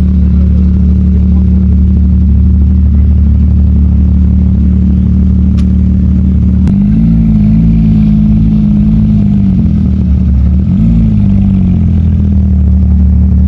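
Supercar exhaust idling loud. About halfway through, the revs lift a little and hold for a few seconds, then drop back. A second short blip follows before it settles back to idle.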